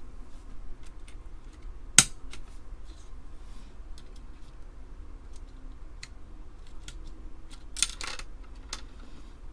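Plastic keycaps and a space bar being handled and pressed back onto an Amiga keyboard: scattered small plastic clicks and taps, with one sharp click about two seconds in and a cluster of clicks near the end.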